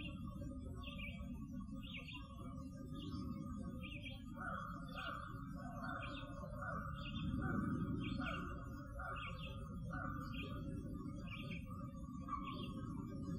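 A steady low rumble of outdoor background noise is the loudest sound. Over it, a bird gives short chirps that repeat about one and a half times a second, with a steadier, higher chattering band behind them.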